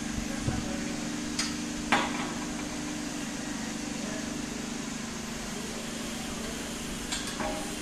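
A steady low mechanical hum runs throughout, with a handful of sharp knocks and clinks as iron test weights and their hooks are handled and unhooked from a dial hanging scale. The loudest knock comes about two seconds in, and two lighter clicks come near the end.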